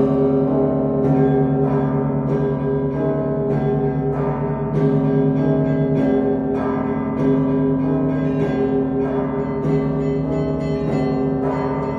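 Russian Orthodox church bell ringing (zvon) on the Danilov Monastery's historic set of bells: a fast, steady rhythm of struck small bells rings over deeper bells that sound on and change every second or two.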